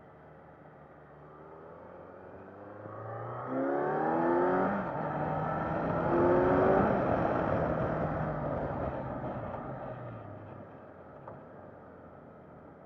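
Kawasaki Z900's inline-four engine under hard acceleration: its note climbs, drops briefly at the shift from second to third about five seconds in, and climbs again. The throttle then closes and the engine note falls away under wind noise.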